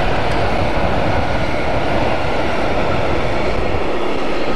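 A passing train: a steady, loud rumble and rush of wheels on rails.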